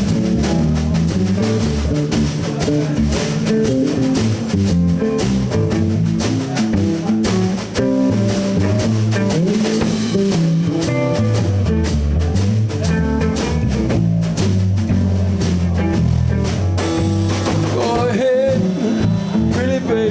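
Live blues trio playing an instrumental break: electric guitar lead over bass and drum kit, with wavering, bent notes near the end.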